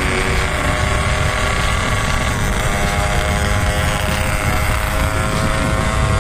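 Motorcycle engine running steadily while riding, its pitch dropping slightly about two and a half seconds in, under heavy wind rumble on the microphone.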